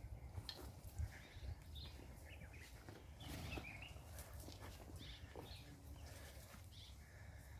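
Faint outdoor ambience: scattered short bird calls and chirps over a steady low rumble, with a few soft knocks.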